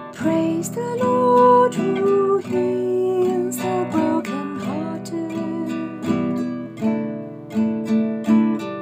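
Instrumental music: acoustic guitar strumming chords, with a slow melody of held notes above.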